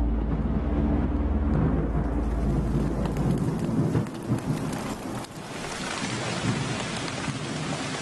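Heavy rain pouring, with a low rumble of thunder that dies away about three and a half seconds in. The rain then carries on alone as a steady hiss.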